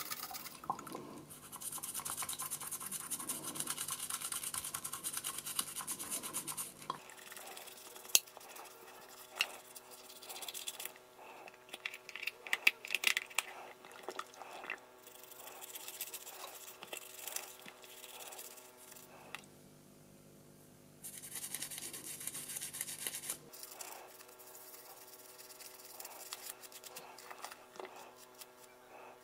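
Soft toothbrush scrubbing a plastic toy pony in a glass dish of soapy water, in two long stretches of fast brushing. Scattered clicks and knocks of handling fall between them.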